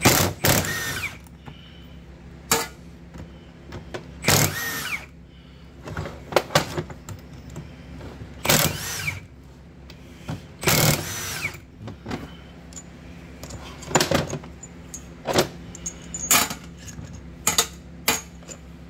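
Milwaukee impact wrench in short bursts, each with a rising and falling whine, spinning the large bolts out of old brake calipers. There are about eight bursts, with small metal clicks of parts being handled between them.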